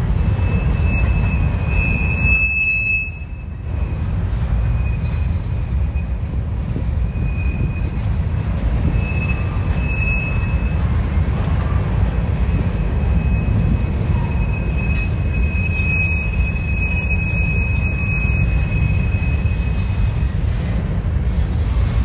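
Covered hopper cars of a sand train rolling past, a steady low rumble of steel wheels on rail. A thin high-pitched wheel squeal comes and goes, longest from about 15 to 20 seconds in.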